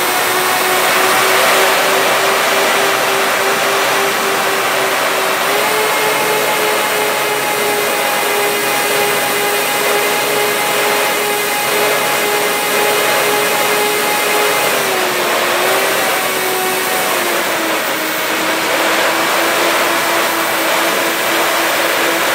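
HobbyKing B-25 model aircraft's twin electric motors and propellers whining steadily in flight, over the rush of air past the airframe. The pitch steps up about five seconds in, dips briefly around fifteen seconds, and settles lower a few seconds later as the throttle changes.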